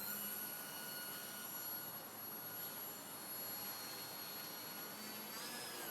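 Remote-control model airplane's motor whining steadily in flight, its pitch rising slightly near the end.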